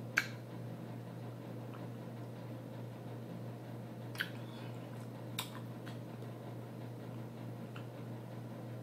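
Frozen grapes being chewed with the mouth closed, giving a few scattered crisp crunches, over a steady low hum.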